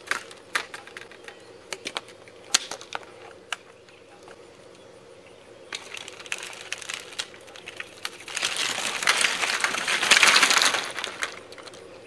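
PVC pipe struts knocking and clattering as a geodesic dome is taken apart. Separate sharp clicks come first, then a dense rattle of pipes that is loudest near the end.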